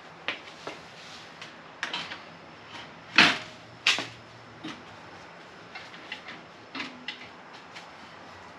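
Scattered knocks, clicks and clunks of a front-mount intercooler being handled and seated into its mounting brackets at the front of the car. The two loudest knocks come about three and four seconds in.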